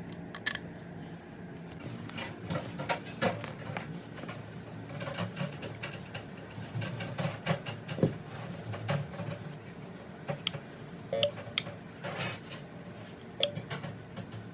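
Scattered light clicks and knocks of tools and parts being handled on a bench, over a faint low steady hum.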